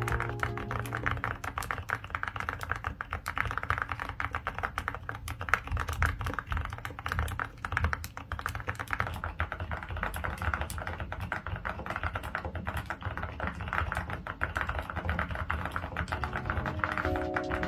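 Fast typing on a mechanical keyboard fitted with XLLAB Butter tactile silent switches (HMX-made, large tactile bump, 37 g), a dense run of keystrokes. The bottom-out is dampened by silicone pads but not fully silenced, giving a soft rumbling clack.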